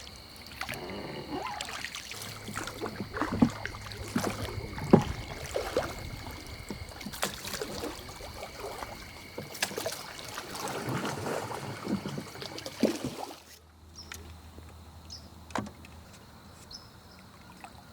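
Oars working a raft on a river: irregular splashes and knocks of the strokes. The sound drops away abruptly about three-quarters of the way through, leaving only a few faint knocks.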